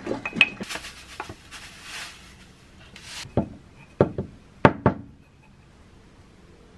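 A wooden spoon tapping and scraping in a glass jar of sliced strawberries and sugar, then the jar shaken with a short rattle of sugar and about five sharp knocks of the jar against a wooden cutting board.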